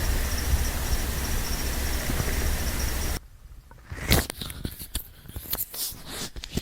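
A steady low noise that cuts off suddenly about three seconds in, followed by quiet, close-up stomach gurgles with scattered small clicks and pops.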